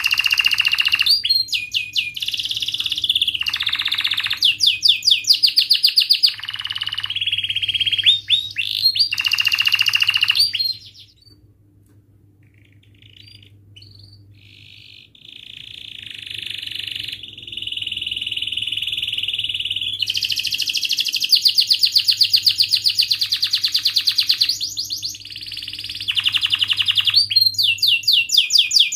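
Domestic canary singing long phrases of fast trills and rolls. The song breaks off for a few seconds about halfway through, then resumes with more rapid trills.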